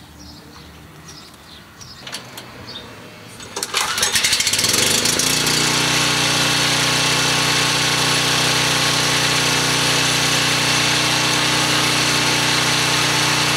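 Porter Cable 5500-watt generator's Briggs & Stratton engine starting about four seconds in, then running steadily at an even speed, its exhaust muffler newly bolted back in place after the mounting bolts had vibrated loose and broken the pipe.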